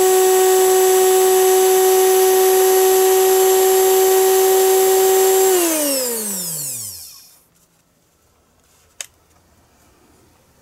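Magic Bullet blender's universal motor, out of its housing, running flat out on 120 V AC at about 22,000 RPM: a loud, steady high whine. About five and a half seconds in it is switched off, and the whine falls in pitch as it spins down to a stop over a second and a half; a faint click follows later.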